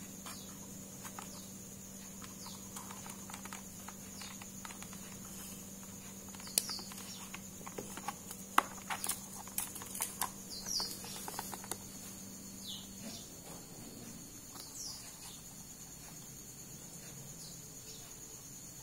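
Light plastic clicks and taps, bunched in the middle, as small rotary-tool bits are handled in their snap-in plastic storage case. Under them run a faint steady high whine and a low hum that stops about two-thirds of the way through, with a few short high chirps.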